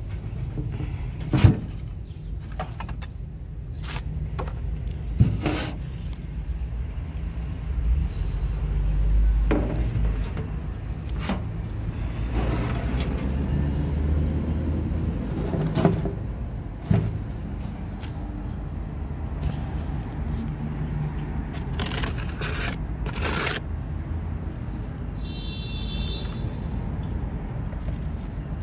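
Scattered knocks and scrapes of objects being handled, such as a board shifted over a concrete floor, over a steady low rumble. A brief high squeak comes near the end.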